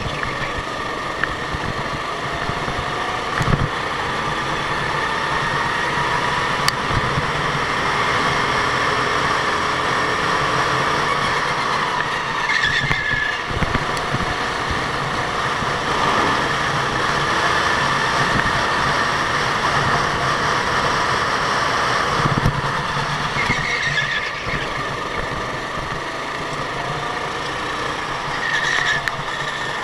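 Go-kart engines running on a track, their pitch rising and falling with throttle, with a few short high squeals.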